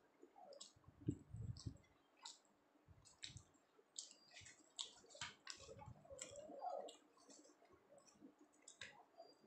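Faint mouth sounds of a person eating soft flatbread and chickpea dal by hand: scattered wet clicks and smacks of chewing and lips. A low thump comes about a second in, the loudest sound here.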